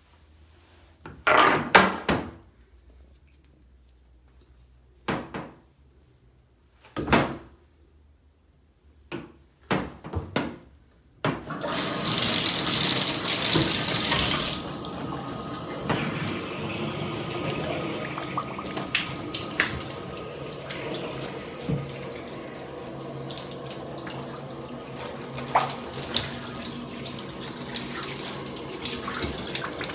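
A few short knocks and handling sounds, then about eleven seconds in a sink faucet fitted with a slip-on shower hose is turned on. Water bursts out as a loud hissing spray for about three seconds, then settles into a steady run of water splashing in the sink.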